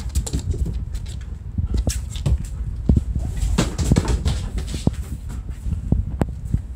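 German Shepherd moving about on a wooden floor: irregular clicks and patters of its claws, over a low rumble of handling noise.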